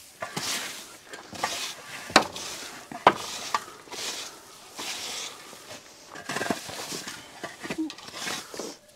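Hand tools scraping over a dirt floor and loose hay rustling as it is gathered and tossed into a wheelbarrow, in repeated strokes about once a second. There are two sharp knocks about two and three seconds in.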